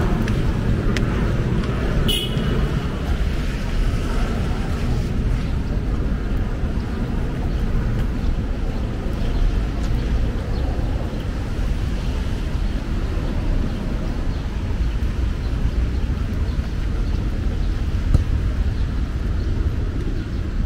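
Steady low rumble of city traffic, with one brief sharp click-like sound about two seconds in.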